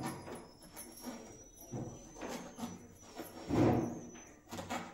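Kitchen knife cutting through a brinjal onto a wooden chopping board: a few uneven thuds, the loudest about three-quarters of the way through.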